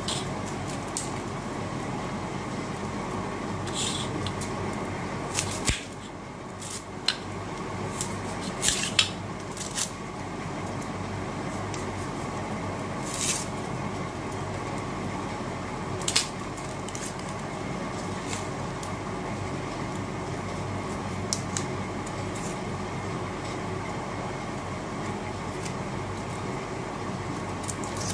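Red onion being peeled by hand over a steel plate: a scattering of short, crisp crackles and scrapes as the dry skin tears off, over a steady background hiss.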